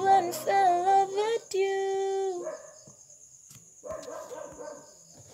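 Woman singing the last line of a pop ballad cover over a backing track. The accompaniment stops about a second and a half in, and she holds a final steady note that ends about two and a half seconds in. A brief, quieter sound follows about four seconds in.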